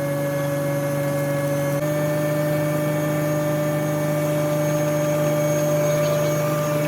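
A truck engine running steadily with an even hum, its pitch stepping up slightly about two seconds in.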